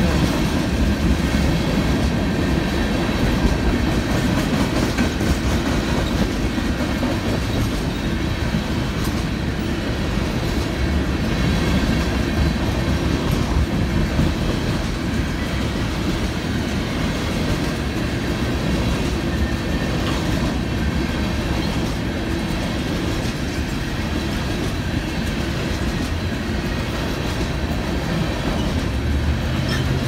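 Freight train of tank cars rolling steadily past, with wheels rumbling and clacking over the rails.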